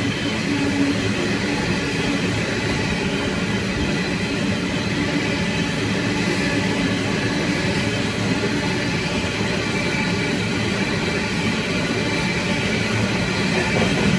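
Coal train's hopper wagons rolling past close by, a steady loud noise of steel wheels running on the rails.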